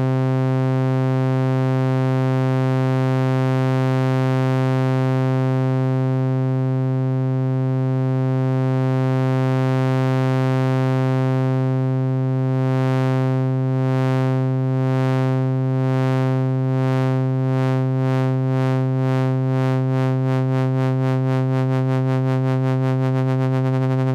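A held note on a software synthesizer, with an LFO sweeping the filter cutoff so the tone wobbles. The wobble is slow at first and speeds up steadily through the second half into a fast flutter as the modulation wheel raises the LFO speed.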